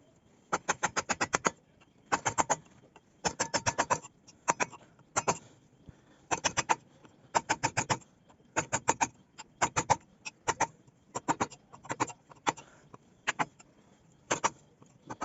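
A hand tool working wood in quick strokes, in short runs of about five to eight strokes separated by brief pauses.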